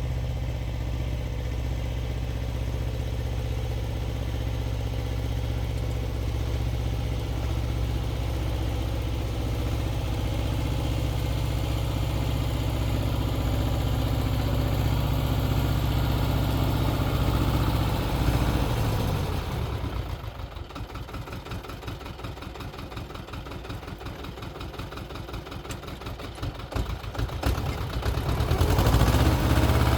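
Xingtai 220 mini tractor's diesel engine running steadily under load with its rotary tiller. About 19 s in it drops to a slow, quieter run with regular firing pulses, then picks up again and runs loud near the end.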